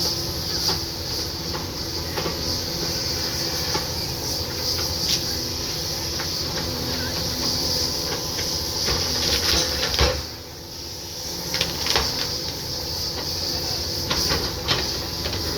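A Caterpillar heavy machine's diesel engine running steadily, with a high hiss over it. Sharp cracks and knocks come several times, the loudest about ten seconds in, as trees are taken down.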